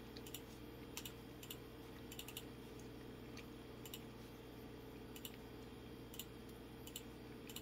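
Faint, irregular clicks from working a computer, some in quick pairs, over a steady low electrical hum.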